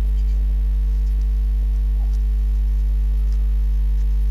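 Steady low electrical mains hum, a constant buzz with overtones, with a few faint small ticks from handling.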